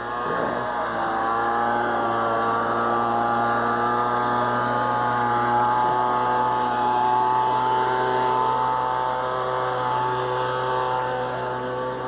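A motor running at a steady speed: a continuous even hum whose pitch drifts only slightly.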